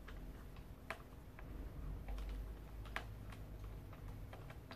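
Scattered light clicks and taps of the rocker's plastic and metal frame parts being handled while a screw is fitted and tightened, with two sharper clicks about one and three seconds in.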